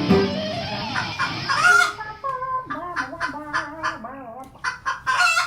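Chicken clucking: a run of short calls that bend in pitch, coming after the tail of music fades in the first couple of seconds.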